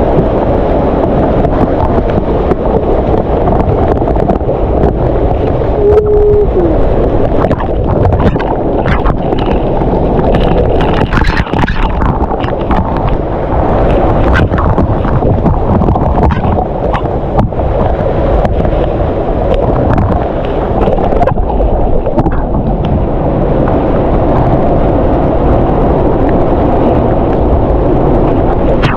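Waterfall pouring close by: a loud, steady rush of falling water. Scattered short, sharp sounds come in the middle stretch, and a brief tone sounds about six seconds in.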